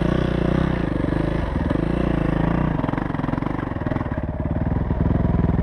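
Yamaha YZ450F's single-cylinder four-stroke dirt bike engine running at low revs, the note dipping about three seconds in and picking up again near the end.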